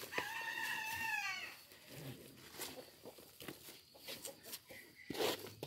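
A chicken's single long call lasting about a second and a half, its pitch bending down at the end. Soft rustles and small clicks of soil and plant stalks being handled follow.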